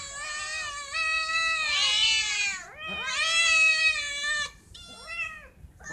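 Several hungry cats meowing over one another, drawn-out calls that rise and fall in pitch, the last one fainter near the end: cats begging to be fed.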